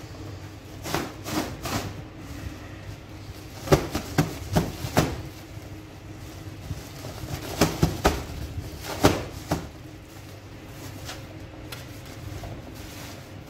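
A heavy flour sack being shaken and knocked against the rim of a dough mixer bowl as flour is emptied into it: several clusters of thumps and flapping knocks over a low steady hum.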